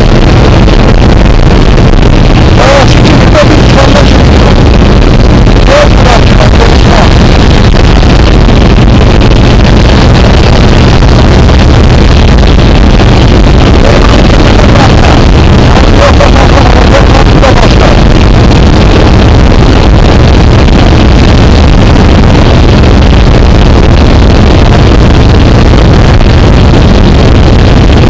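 Loud, steady drone of a jump plane's propeller engine heard from inside the cabin, mixed with wind rushing past the open door onto the microphone.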